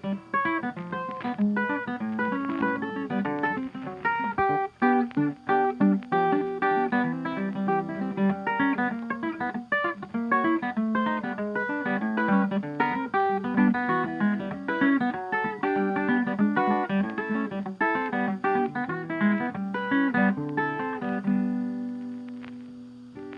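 Background music: a guitar playing a quick run of plucked notes, fading out near the end.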